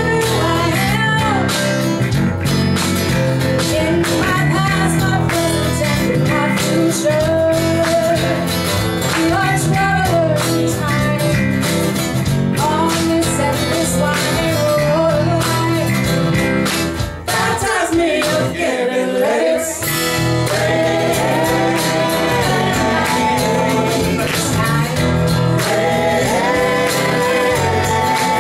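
Live soul band playing: a singer carries the melody over acoustic guitars, electric bass and keyboard, with a steady beat.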